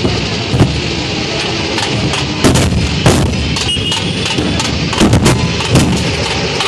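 A dhol troupe beating large rope-slung barrel drums with sticks in a loud, dense drumming rhythm, with heavy accented strokes cracking out every second or so.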